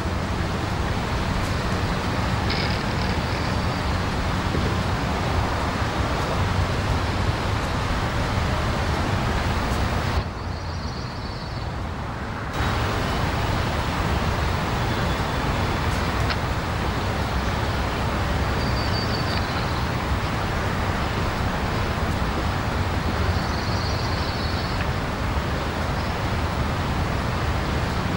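Steady rushing background noise, with no voices or music. It drops for a couple of seconds about ten seconds in, and a few faint high chirps come through now and then.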